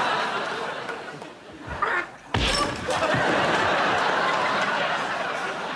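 Studio audience laughing. A sharp thump about two and a half seconds in sets off a fresh, louder wave of laughter.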